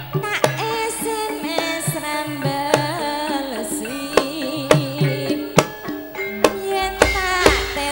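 Javanese gamelan music: sharp kendang drum strokes under a wavering, ornamented sung melody.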